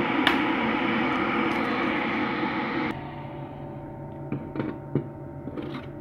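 Stainless electric kettle heating water with a loud, steady rushing hiss and a sharp click just after the start. About three seconds in it cuts off abruptly, leaving a quieter steady hum with a few light knocks.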